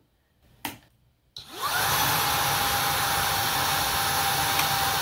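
Shark Rocket Pet Pro cordless vacuum switched on: a click, then after a pause of under a second the motor spins up with a rising whine and runs steadily with a loud hiss and a steady whine. The lag before the motor kicks in is a quirk of this vacuum when it has not been used for a while.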